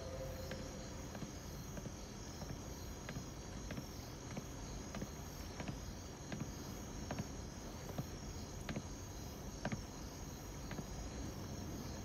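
Faint night ambience of crickets chirping steadily, with soft footsteps on a wooden footbridge, small clicks at an even walking pace.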